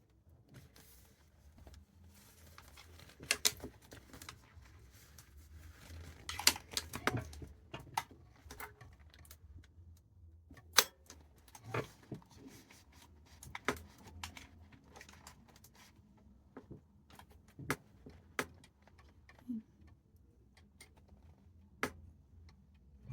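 Irregular light clicks, taps and rustling from hand work: bag parts, hardware and tools being handled on a work surface, with a few sharper knocks.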